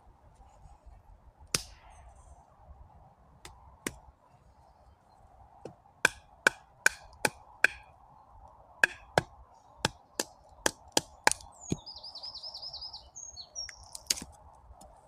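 Small hatchet head of a compact survival multitool chopping into a 1-inch stick: sharp wooden chops, a couple spaced out at first, then quick runs of strikes about two to three a second. Near the end a bird gives a brief high, trilling song.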